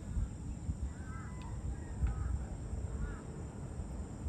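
A bird calling three times, short arched calls about a second apart, over a steady low rumble.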